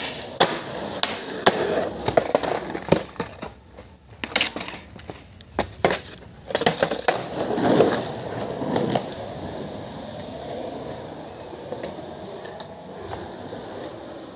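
Skateboard on concrete: several sharp clacks of the board popping and slapping down in the first six seconds, then wheels rolling past close by about seven to nine seconds in, settling to a quieter roll.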